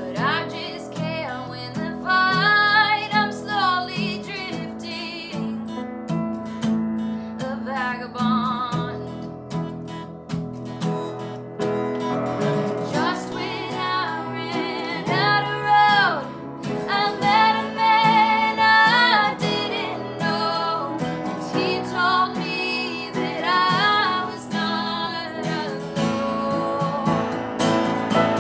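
Worship song: a singer holding long, wavering notes over strummed acoustic guitar.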